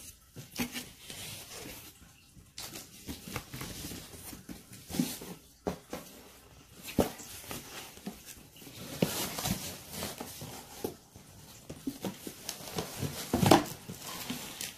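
Cardboard shipping box being pulled open and handled: flaps rustling and scraping, with irregular knocks, the loudest near the end.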